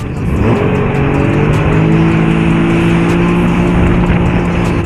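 Jet ski engine revving up, then holding a steady pitch, and stopping abruptly near the end.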